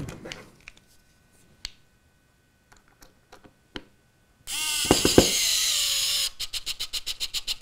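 Cordless electric screwdriver driving a small screw into plywood: after a few faint clicks, the motor whines steadily for about two seconds, then breaks into a rapid stutter of about seven pulses a second. The screwdriver is low on charge.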